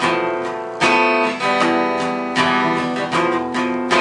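Music: strummed acoustic guitar chords ringing between sung lines of a song.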